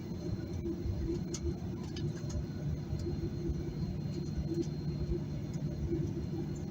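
Inside the cabin of a Boeing 737-800 taxiing to the runway: a steady low rumble from its CFM56 engines at taxi thrust and the rolling aircraft. A few faint rattles come a second or two in.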